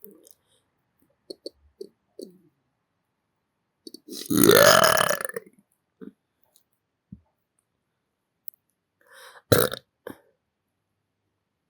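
A person belching close to the microphone: one long, loud burp about four seconds in and a shorter one near the end, with small wet mouth clicks in between.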